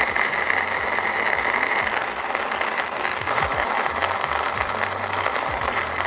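Timemore 123Go electric coffee grinder running steadily, grinding 15 g of coffee beans at a pour-over setting.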